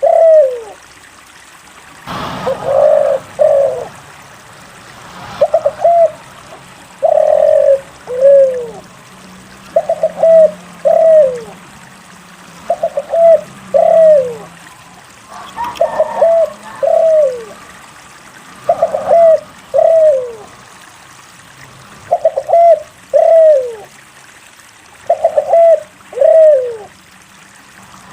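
Spotted dove (derkuku) cooing over and over, a phrase every two seconds or so: two or three short coos followed by a longer, falling coo. The bird is in full, steady song.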